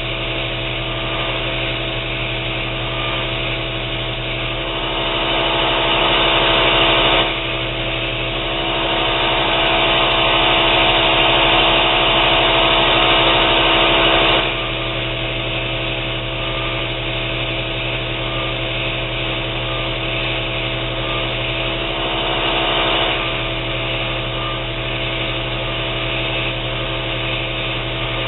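Belt grinder running with a steady motor hum while a steel knife blank is pressed against the belt over the contact wheel, grinding off rust. The grinding grows louder for two long stretches in the first half and briefly again past the middle, as the steel is pressed harder.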